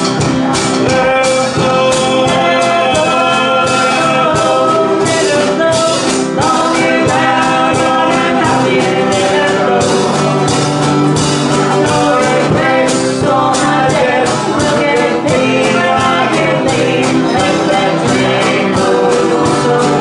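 Live folk band playing: acoustic guitar, banjo, harmonica and drums with a steady beat, and a woman singing lead.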